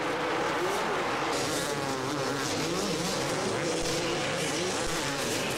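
Several two-stroke supercross motorcycles racing, their engines revving up and down over one another in a steady, buzzing mix.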